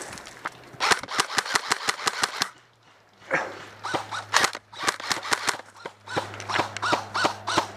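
Airsoft guns firing in rapid strings of sharp snapping shots: a quick string of about a dozen shots, a brief pause about two and a half seconds in, then more strings of shots.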